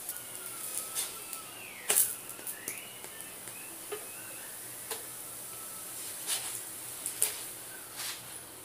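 Wooden spatula scraping and knocking against an iron tawa as a stuffed toast is pushed about and lifted off the griddle: a series of short knocks and scrapes, the sharpest about two seconds in.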